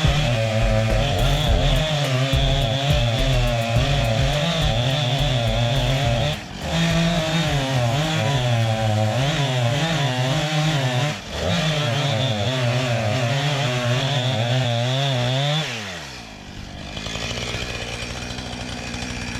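Gas chainsaw cutting a felling notch into a tree trunk, its engine pitch wavering under load, with two brief dips. About three-quarters of the way through, the engine speed falls away and leaves a lower, steady running sound.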